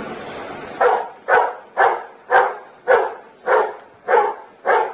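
Large retriever-type dog barking eight times in an even run, about two barks a second, starting just under a second in: counting up to ten on command.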